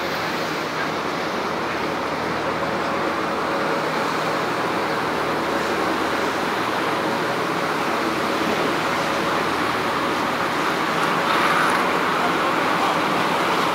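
Steady rushing noise of a boat under way: the churning wake, the engine running and wind over the deck, growing slightly louder near the end.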